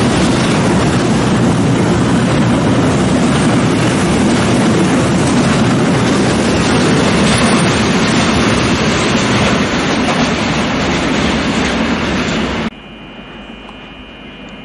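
Freight train of flat wagons loaded with pipes rolling past close by: a loud, steady, heavy rumble of steel wheels on rail. About 13 seconds in it cuts off suddenly, giving way to a much quieter steady high-pitched whine.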